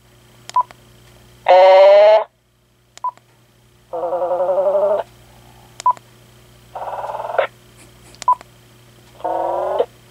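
Uniden Loud&Clear cordless handset giving a short key beep, then its talking caller ID's synthesized voice reading out an entry of repeated letters, four times over. Over a faint steady hum.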